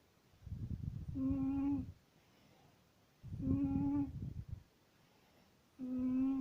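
A cat snoring in a regular rhythm, about one snore every two and a half seconds. Each snore is a low rattle carrying a high, whistling hum. The third snore begins near the end.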